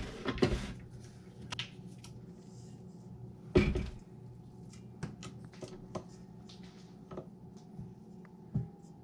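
Clicks and light knocks from handling a KitchenAid tilt-head stand mixer, as the head is tilted back and the dough-covered flat beater is worked off its shaft, with one louder clunk about three and a half seconds in. A faint low hum runs underneath.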